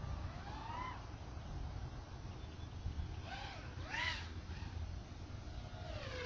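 A crow cawing several times in short arching calls, once near the start and a few times around the middle, over a steady low rumble.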